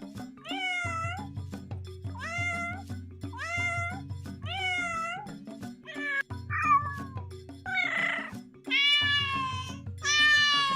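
Domestic cat meowing repeatedly, five short meows of the same shape about once a second, then harsher and longer meows toward the end, over background music with a steady beat.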